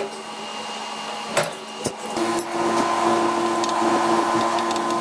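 Two sharp knocks, then about two seconds in a small electric motor starts running steadily at a constant pitch.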